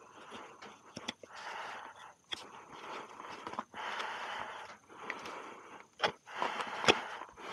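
Hoof knife paring the sole of a horse's hoof: a series of about six scraping strokes, each under a second to about a second long, with short pauses between them and a few sharp clicks as the blade catches or leaves the horn.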